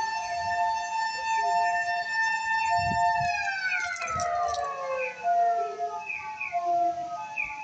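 Ambulance motor siren holding a steady high wail, then winding down in a long falling pitch from about three seconds in. The ambulance's electronic two-tone siren keeps repeating underneath.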